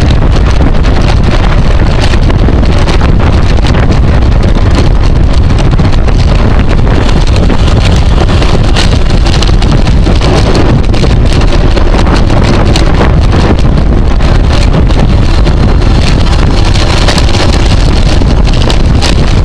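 Loud, steady wind rush buffeting the microphone of a camera carried on a racing bicycle at speed.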